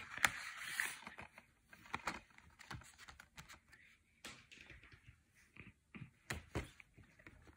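Handling noise of a cardboard slipcase being slid back onto a plastic Blu-ray/DVD case: a brief rustle at the start, then scattered light clicks and rustles, with sharper clicks about four seconds in and twice more near the end.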